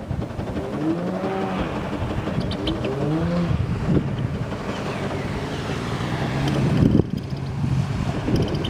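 Jet ski engine running, its pitch rising and falling with the throttle for a couple of seconds, then holding steadier.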